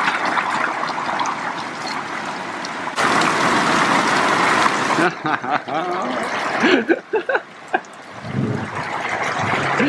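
Heavy rain pouring down, a dense steady hiss that grows harder about three seconds in before easing a little.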